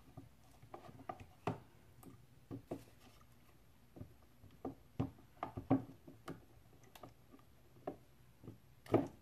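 Silicone spatula tapping and scraping against a plastic tub while stirring chunks of cocoa butter into oil: quiet, irregular soft clicks and knocks.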